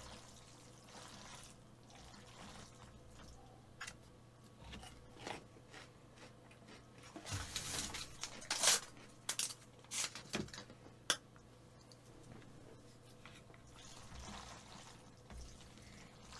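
Chopsticks mixing wide kalguksu noodles through thick black bean sauce in a large bowl: faint, irregular wet squelching with scattered clicks, busiest from about seven to eleven seconds in.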